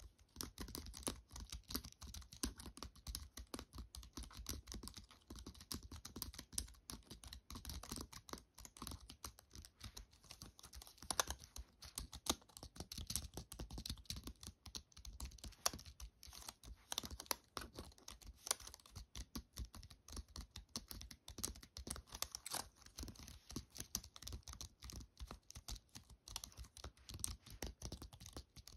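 Steady, fast typing on a compact keyboard with round keycaps: a continuous stream of soft key taps and clicks.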